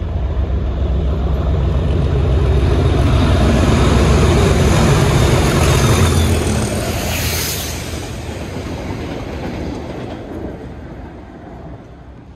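English Electric Class 37 diesel locomotive passing at speed, its V12 engine building to a peak as it goes by. A brief hiss follows, then the wagons rattle past and the sound fades away.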